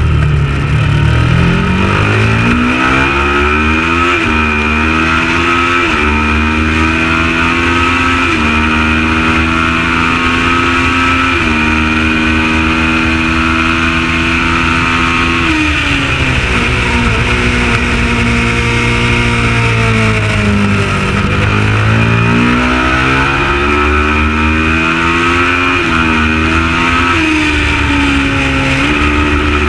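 Kawasaki ER650 parallel-twin engine of a Supertwin race bike at race pace, revving up and upshifting several times in quick steps. About halfway through, the pitch falls for several seconds as it slows through the gears, then it pulls hard up through the gears again.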